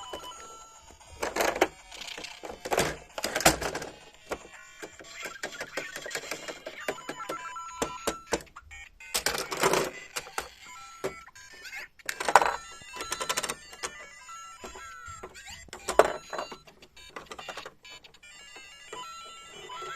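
LEGO Mario interactive figure playing electronic beeps, ringing sound effects and short jingles from its small built-in speaker. Several sudden loud knocks come and go in between.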